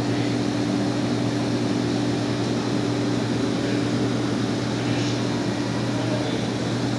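Steady mechanical hum with a constant low drone and an even rushing noise over it, unchanging throughout.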